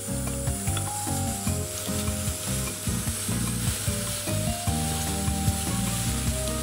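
Chopped onions frying in oil in a nonstick frying pan, a steady sizzle with small crackles, stirred with a wooden spatula. Held low notes changing every half second or so run underneath, likely soft background music.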